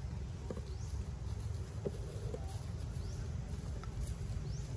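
Forest ambience: a steady low rumble, three faint short rising chirps about two seconds apart, and a few soft taps near the middle.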